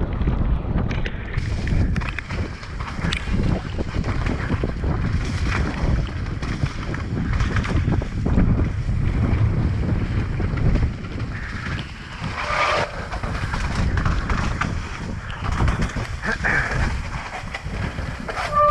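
Helmet-mounted camera on a mountain bike descending a wet, rocky trail: wind buffeting the microphone over the rolling of the tyres on dirt and rock, with frequent knocks and rattles from the bike over bumps.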